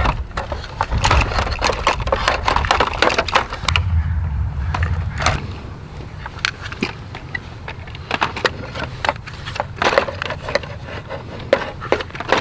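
Plastic toy backhoe digging and scraping in dirt and sand: an irregular run of scrapes, clicks and gritty crackles of soil against plastic, with a low rumble through the first half.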